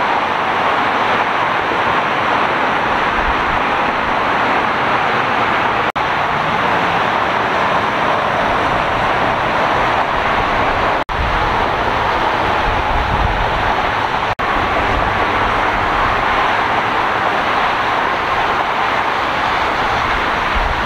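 Steady noise of freeway traffic, the tyres and engines of many passing cars. It breaks off for an instant about six, eleven and fourteen seconds in, where separate clips are joined.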